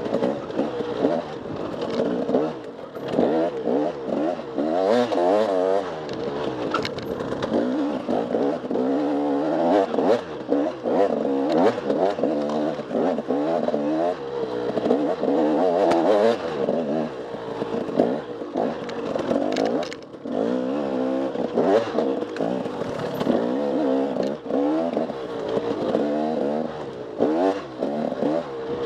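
Off-road motorcycle engine being ridden hard, the revs rising and falling every second or so as the throttle is worked, with occasional clatters.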